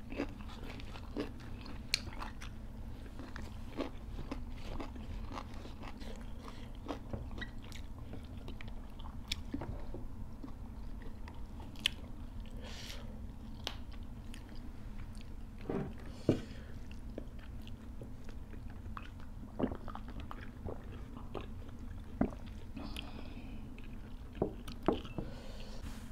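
Close-miked eating: chewing and crunching of raw vegetables, with scattered sharp clicks and smacks.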